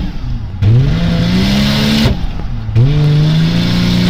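Toyota Chaser's 1JZ-GTE twin-turbo straight-six accelerating through the gears, heard from inside the cabin: the engine note climbs steadily, drops away at a shift about two seconds in, then climbs again. The ECU is reporting code 34, a turbo boost problem.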